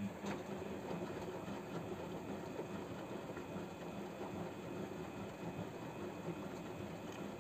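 Samsung WF0800NCE washing machine's motor turning the drum during a drum-clean cycle: a steady mechanical whir with a low hum.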